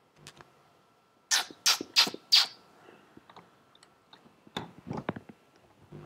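A hand scratching or rubbing the face close to the microphone: four quick, loud scratchy strokes, followed by softer scattered rubs and clicks.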